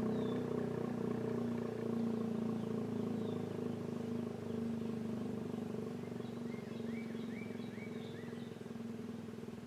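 ACA P-15 rotating outdoor warning siren sounding a steady tone that slowly gets quieter. A bird chirps several times in quick succession near the end.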